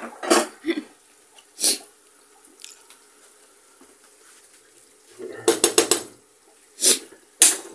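Wooden spatula knocking against cooking pans while food is stirred: a few separate knocks, then a quick run of about five knocks about five seconds in, then two more near the end.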